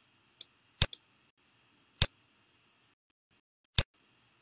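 Computer mouse button clicks: a faint one, then three sharp single clicks spaced about one to two seconds apart, over low steady hiss.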